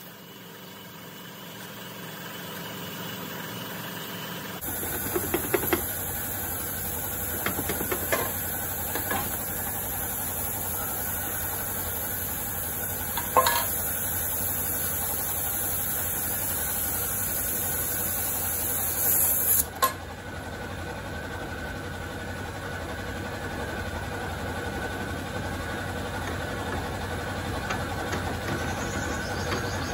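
Steady mechanical hum with a high hiss, stepping up abruptly a few seconds in. A few sharp metal clinks come through as the scooter's belt cover is taken off and its clutch assembly is handled.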